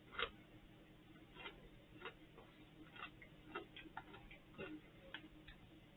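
Faint, irregular crunches of a man chewing airy popped crisps, about eight small cracks over a few seconds, otherwise near silence.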